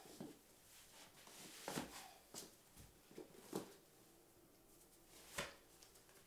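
Faint rustles and soft knocks of boots being pulled on over jeans, about six short sounds spread out, the loudest about two seconds in and near the end.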